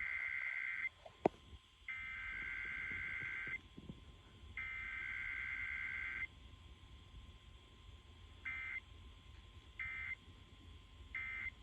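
Emergency Alert System SAME digital data bursts: three long buzzing header bursts about a second and a half each, a second apart, then three short end-of-message bursts in the same pitch band, with no attention tone or voice message between them. A single sharp click comes about a second in.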